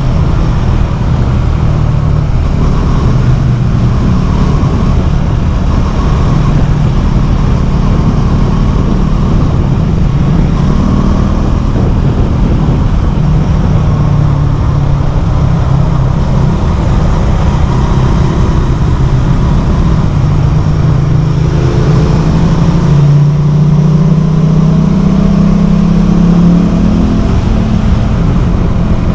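Motorcycle engine running loud through a LeoVince LV One Evo carbon slip-on exhaust with its dB killer removed. Near the end its pitch climbs steadily as it accelerates.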